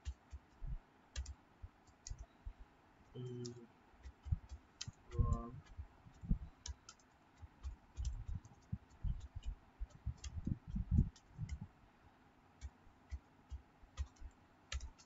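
Typing on a computer keyboard: a run of irregular keystroke clicks with soft thuds under them, uneven in pace.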